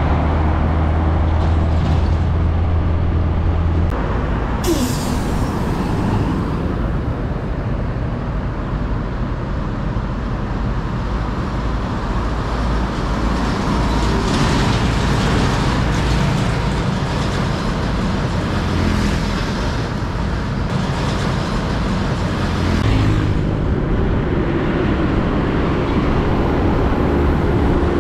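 Heavy trucks driving past on a road: diesel engines running and tyre noise swelling as each one goes by. A short air-brake hiss comes about five seconds in.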